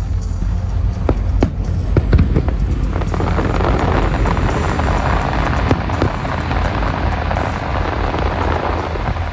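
Aerial fireworks going off: a continuous low rumble of booming bursts with scattered sharp bangs, joined about three seconds in by a dense crackling hiss.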